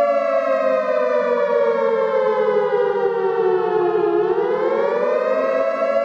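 A loud, siren-like horn tone. It slides slowly down in pitch for about four seconds, then rises back within a second or so and holds steady, over a lower steady drone.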